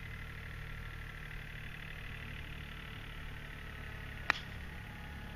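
A golf iron striking the ball: one sharp click about four seconds in, over a steady low background hum.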